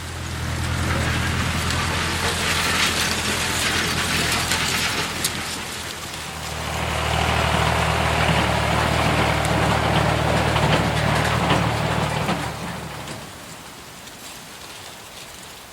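Big diesel engine of a 600 hp Case IH Quadtrac tractor working under load: a steady low drone under a broad hiss. It eases briefly about six seconds in, comes back up, then fades away about thirteen seconds in.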